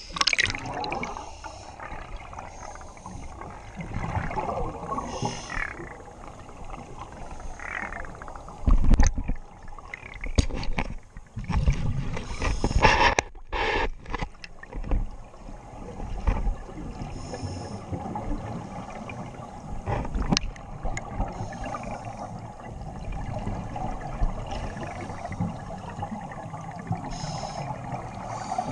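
Underwater sound picked up through a diving camera's housing: scuba divers' exhaled bubbles gurgling and rumbling past in irregular loud bursts, over a constant muffled murmur.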